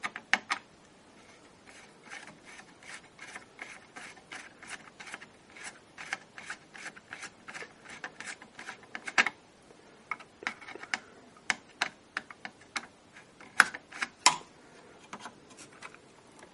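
Screwdriver working a small screw out of the top of a hinged circuit board: a run of light, irregular clicks and scrapes, several a second, with a few louder clicks near the end as the board comes free.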